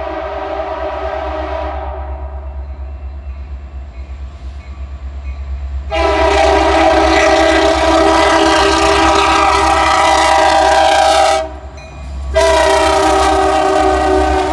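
Air horn of a CN diesel freight locomotive sounding a chord: a blast that fades over the first couple of seconds, then a loud long blast starting about six seconds in, a break of about a second, and another loud blast. The locomotives' diesel engines rumble low underneath throughout.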